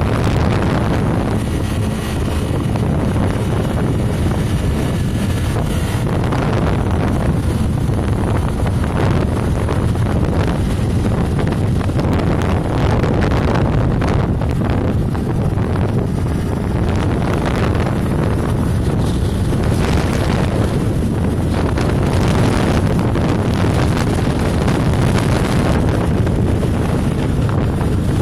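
Motorcycle running steadily at riding speed, largely buried under heavy wind noise on the microphone.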